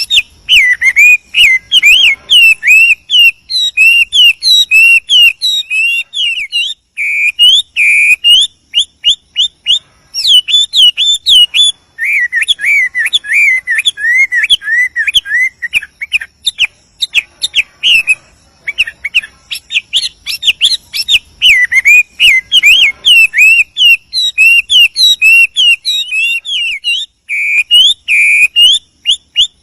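Male Chinese hwamei singing: a continuous fast stream of varied, slurred whistled notes that swoop up and down, broken by a few brief pauses.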